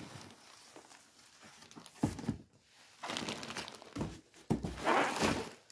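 Bubble wrap crinkling and rustling as a large wrapped bag is handled and lifted out of a cardboard box, in irregular bursts starting about two seconds in.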